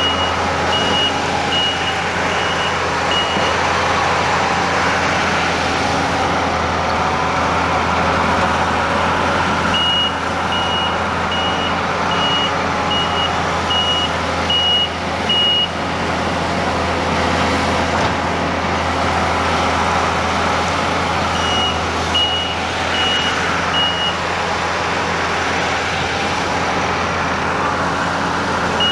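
Diesel engine of a skid-steer loader running steadily while it works driveway stone, its reversing alarm beeping about one and a half times a second in several spells as it backs up.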